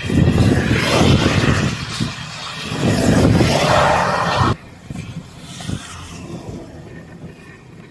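Vehicle tyres hissing through standing water on a rain-soaked road, a loud swish twice; the second, from a pickup truck, cuts off abruptly about four and a half seconds in. Then a quieter, even hiss of rain on the wet asphalt.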